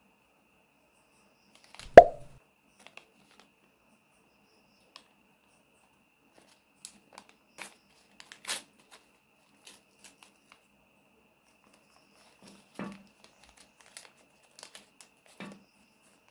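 Thin paper crinkling and tearing in short, scattered crackles as small folded paper packets are unwrapped by hand. A single sharp knock about two seconds in is the loudest sound.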